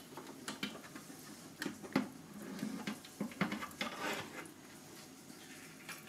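Scattered light metallic clinks and scrapes as a rotisserie spit is hooked with its removal handle and lifted out of its supports in a SilverCrest countertop mini oven.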